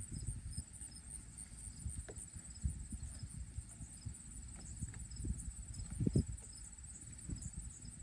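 Insects chirring steadily in the background, a high-pitched pulsing trill, over a low rumble with scattered soft thumps.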